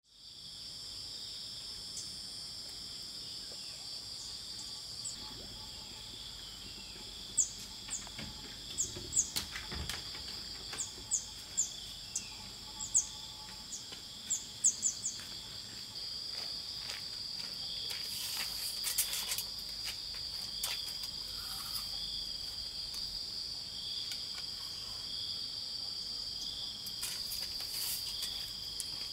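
A steady, high-pitched insect chorus with two shrill continuous tones, taking on a pulsing beat about halfway through. In the first half a bird chirps repeatedly in quick, short, high notes.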